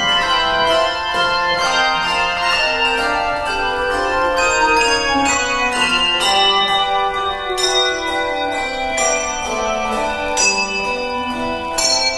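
Handbell choir ringing a hymn arrangement: many overlapping, sustained bell notes, with fresh chords struck every second or two.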